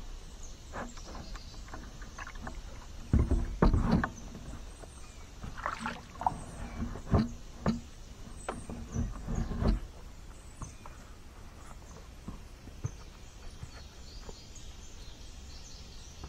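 Knocks and thumps of a man climbing out of a plastic sit-on-top fishing kayak onto a muddy bank, his feet and paddle bumping the hull. The heaviest thumps come about three to four seconds in, with scattered knocks until about ten seconds in, then only faint background.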